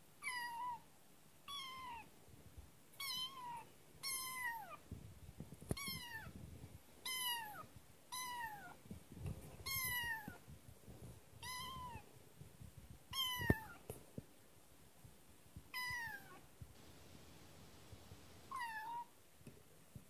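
Very young kitten meowing over and over: about a dozen short, high meows, each falling in pitch, roughly one every one to two seconds. Scuffling and a couple of sharp clicks come between the calls.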